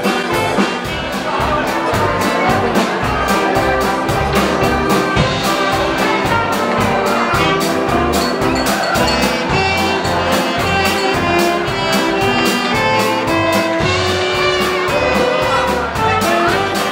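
Live dance band playing 1940s-style dance music: saxophones, trumpet, trombone, violins, double bass and drums, with a steady beat.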